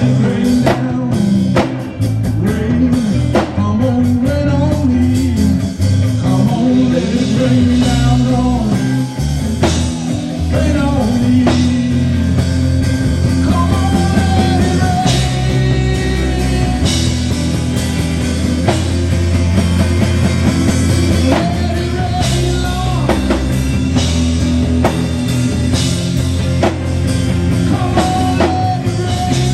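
Instrumental passage of a gospel song: the band plays on with drums and a melodic lead line bending in pitch.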